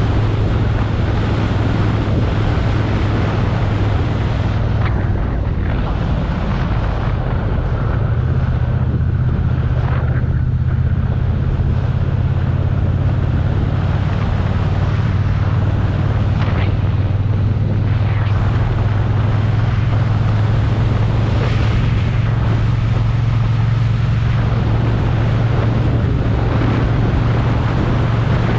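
Motorcycle engine running steadily while riding at a constant pace, with wind rushing over the bike-mounted microphone.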